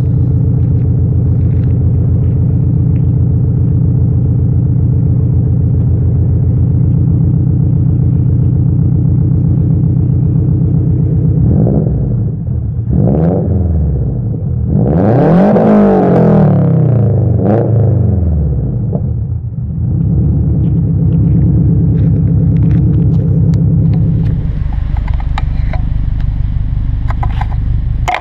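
2006 Subaru Impreza WRX STi turbocharged flat-four with a Blitz NUR exhaust idling with a steady rumble, then blipped several times with one longer rev around the middle, and settling back to idle. Near the end a 2006 Subaru WRX with a catless exhaust idles.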